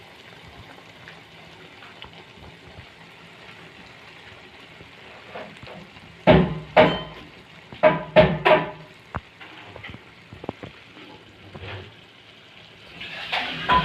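Cabbage and egg frying in a pan with a steady soft sizzle, broken about six to nine seconds in by five sharp metallic clanks of a cooking utensil against the pan.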